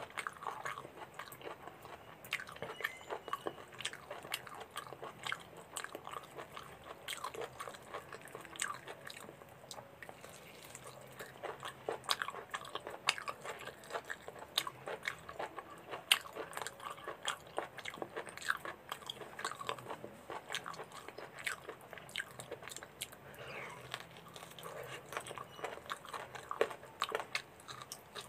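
Close-up eating: a person biting and chewing pieces of mutton in gravy, a dense, irregular run of small mouth clicks and smacks.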